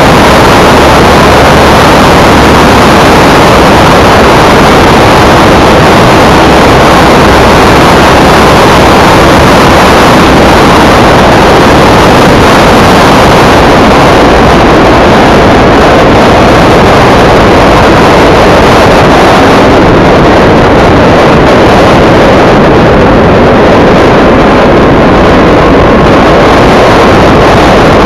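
Sport motorcycle on the move: engine running under a loud, steady rush of wind over the microphone, with no clear changes in pitch.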